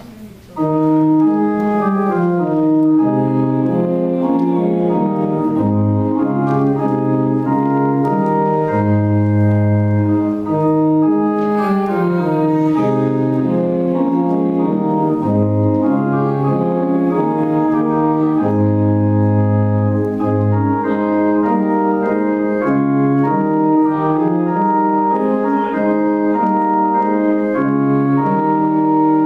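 Organ playing slow, sustained chords over a moving bass line, starting about half a second in.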